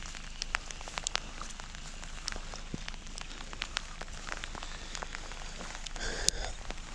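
Rain falling on a rain jacket and the camera: irregular small ticks of drops over a steady hiss, with a brief rustle about six seconds in.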